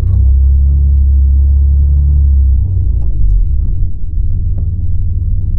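BMW G80 M3 Competition's twin-turbo straight-six under throttle as the car tries to drive out of snow it is stuck in: a loud, steady low drone that eases off about two and a half seconds in.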